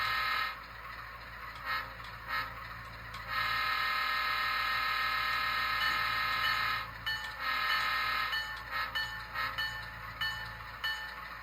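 HO-scale Athearn GP50's DCC sound decoder sounding a diesel locomotive horn through its small onboard speaker: two short toots, one long blast of about three and a half seconds, then a run of quick short toots.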